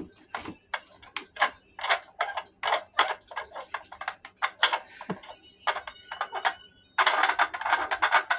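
Hard plastic clicks and rattles from a Mad Dog toy bulldog being handled, several a second, turning into a dense rapid clicking about seven seconds in.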